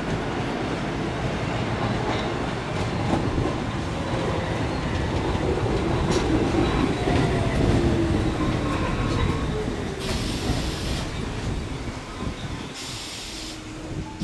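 Staten Island Railway R44 subway train pulling into a station: rumble of steel wheels on rail, with a falling motor whine as it slows. Two short high hisses come near the end.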